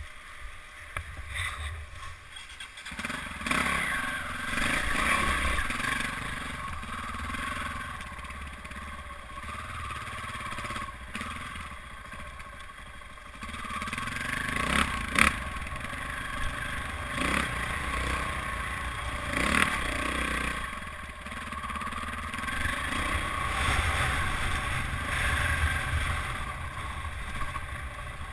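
Dirt bike engine running under load, its revs rising and falling again and again as it climbs a rocky trail, heard from the rider's helmet. Scattered knocks and clatter from rocks, the sharpest about fifteen seconds in.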